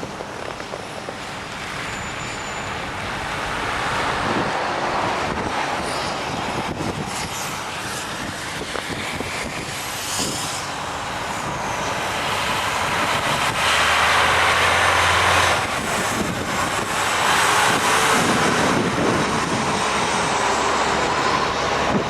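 Road vehicles passing on a snowy road: engine and tyre noise swells and fades several times, loudest in the second half, with wind blowing over it.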